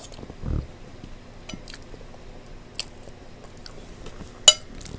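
Eating sounds of a mouthful of chicken alfredo: quiet chewing with scattered sharp mouth clicks, a short low thud about half a second in, and one loud sharp click near the end.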